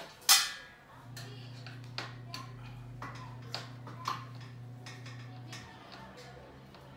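Handling and fitting parts of a flat-pack computer table: one sharp knock near the start, then scattered light clicks and taps, over a steady low hum that stops near the end.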